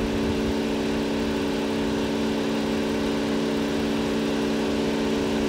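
Toyota Avalon engine idling with a steady, even hum. The engine has a misfire that the mechanic traces to a clogged fuel injector.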